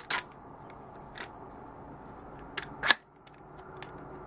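Light metal clicks from a telescoping aluminium folding-bike handlepost being worked by hand, then one sharp, louder clack just before three seconds in.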